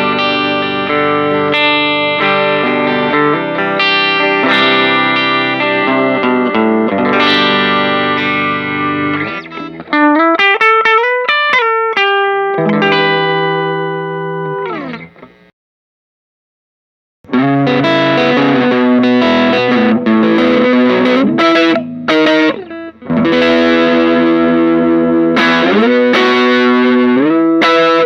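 STADD Teleman Telecaster-style electric guitar played through an amp with some overdrive. It rings out chords and then bends notes up and down, fading out and falling silent for a moment about halfway. It comes back with a grittier rhythmic passage broken by short stops.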